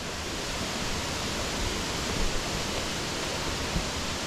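Steady rush of falling water from a rainforest waterfall or cascade.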